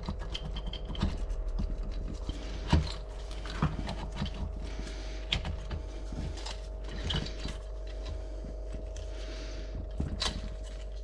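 Scattered light clicks and knocks of metal engine parts and tools being handled as the cylinder head of a Beta Rev3 250 four-stroke engine is worked loose and lifted off its head gasket, over a steady faint hum.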